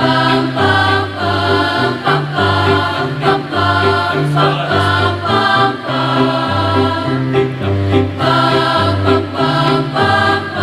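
Mixed choir singing in harmony, with low held notes and a steady beat of short hits underneath.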